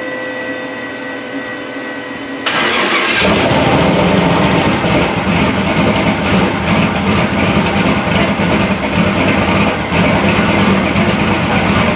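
Freshly rebuilt turbocharged LS V8 on its first start on methanol. A steady whine comes first, then about two and a half seconds in the engine fires and keeps running loudly.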